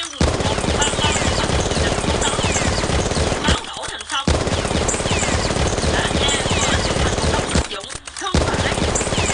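Rapid automatic gunfire sound effect, firing continuously with two short breaks, about four and eight seconds in.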